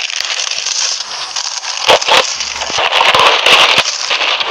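Plastic wrap crinkling as it is cut and pulled off, with two sharp snaps about two seconds in.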